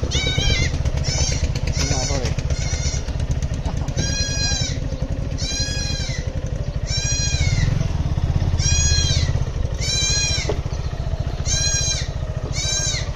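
Motorcycle engine running slowly with a steady low rumble, while a high call that rises and falls repeats about once a second over it.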